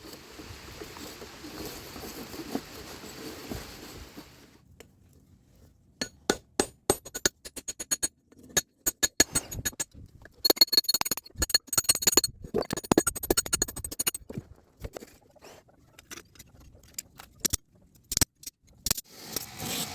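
A steady rushing noise for about four seconds, then a run of irregular sharp metal strikes, several ringing brightly: hammer blows on steel in forging an axe.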